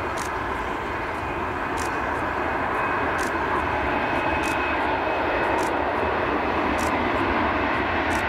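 Jet airliner engines running, a steady whine over a broad rumble, slowly growing louder.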